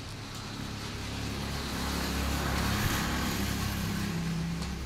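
A motor vehicle passing by: a low engine rumble with road noise that swells to its loudest about halfway through and fades again.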